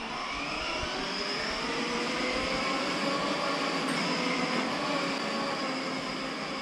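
Children's battery-powered ride-on toy car driving across a tiled floor, its electric drive motors and gearboxes whirring steadily with a slightly wavering whine. The sound eases a little near the end as the car moves off.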